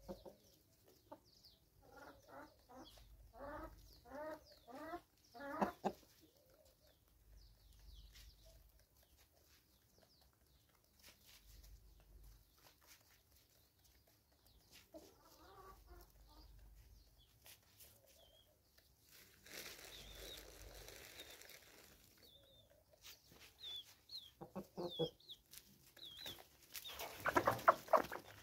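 A flock of hens and roosters clucking as they feed, with a quick run of about eight clucks a few seconds in and a louder, noisier call near the end.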